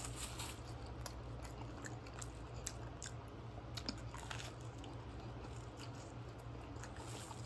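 A person biting into and chewing a toasted grilled cheese Spam sandwich up close, with scattered crunches of the crisp bread and wet mouth clicks.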